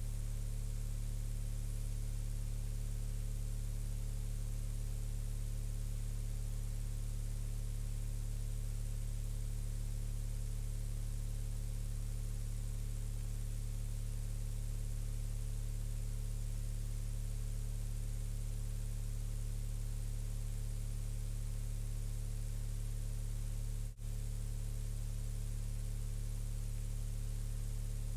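Steady low electrical mains hum with its overtones, under a constant hiss: recording noise with no other sound. The sound drops out for a split second about 24 seconds in.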